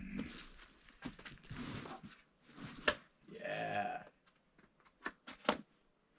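A climber's effort grunts and a strained, drawn-out yell, at its longest about three and a half seconds in, as he pulls through hard moves on an overhanging boulder. Several sharp taps are mixed in, the loudest about three seconds in.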